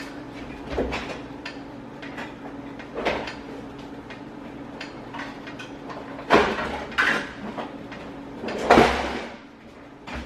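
Kitchen clatter as a lid is fetched and set on a skillet of rice and beans: scattered light knocks, then three louder knocks about six, seven and nine seconds in, over a steady low hum.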